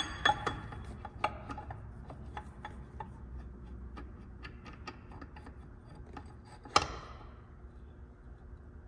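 Light metallic clicks and taps of steel tooling against a Honda K-series transmission's aluminium case, from a dial-indicator setup being worked to check differential shim clearance. One sharper metal clack comes about seven seconds in.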